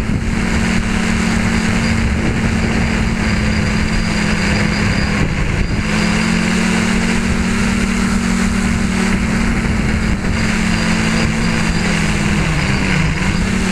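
Hobby tricopter's three electric motors and propellers droning steadily in a hover, heard from a camera mounted on the craft, over a steady rushing hiss. Near the end the pitch dips briefly and comes back up.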